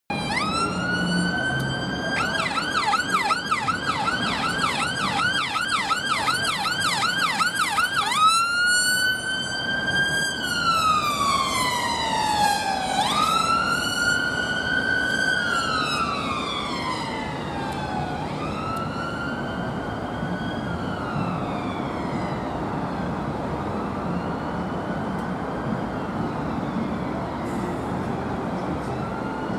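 Emergency ambulance siren on a Fiat Ducato ambulance: a fast yelp of about three sweeps a second for the first eight seconds, then a slow rising-and-falling wail that fades away over its last few cycles, leaving steady road traffic noise.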